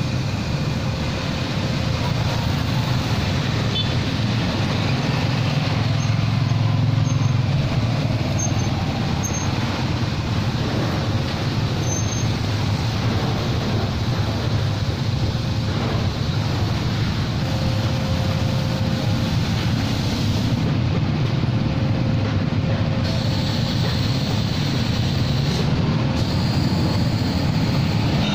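Steady road traffic of cars and motorcycles running and passing close by, a continuous low engine rumble.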